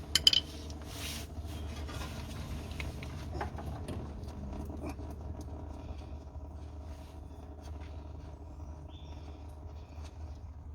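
A few sharp clicks, then faint scattered ticks and scrapes over a low steady hum: hand work with a flathead screwdriver on the plastic radiator drain plug of a Ford Mondeo Mk4.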